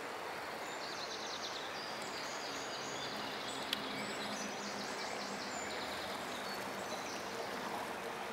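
Steady rushing of the fast-flowing Aare river, with high-pitched chirping over it from about a second in until near the end and a single sharp click near the middle.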